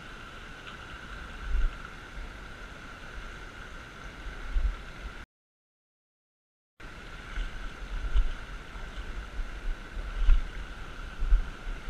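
Shallow river water running over a stony bed, a steady rushing, with uneven low thumps on the microphone. The sound cuts out completely for about a second and a half midway.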